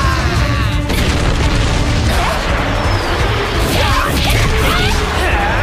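Anime battle sound effects, crashes, impacts and energy whooshes, over a dramatic background score.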